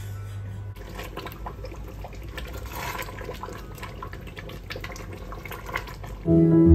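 Water running, with scattered light clicks and clatters. Music comes in loudly near the end.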